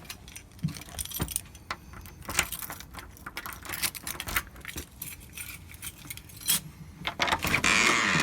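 Keys jangling: a run of light metallic clicks and rattles. Near the end a louder, steady noise with a faint whine starts up.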